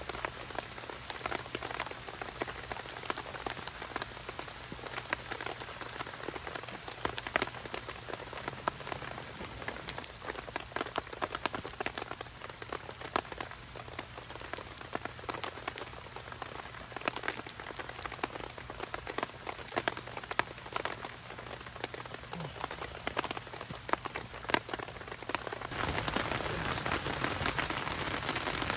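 Rain falling, with many separate drops striking close by over a steady hiss. About 26 seconds in it turns louder and more even.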